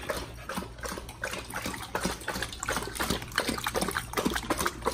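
A Doberman and a pit bull lapping water from their bowls: a quick, irregular run of wet laps and splashes.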